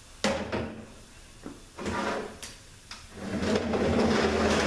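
A few sharp metal clunks as transmission parts are set down on a steel workbench, then a longer, louder scraping from about three and a half seconds in as the heavy transmission case is slid and turned on the bench.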